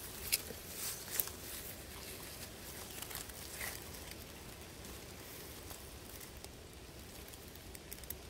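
Faint outdoor background hiss, with a few light clicks or rustles in the first four seconds.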